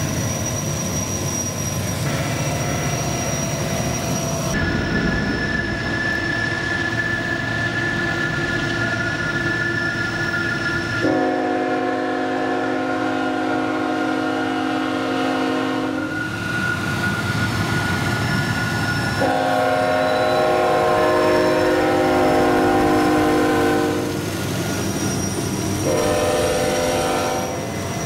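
Air horn of a freight train's lead locomotive, a new Tier 4 GE ET44 unit, sounding two long blasts and then a shorter one, several notes at once, the opening of the long-long-short-long grade-crossing signal. Under it runs a steady low rumble of the moving train.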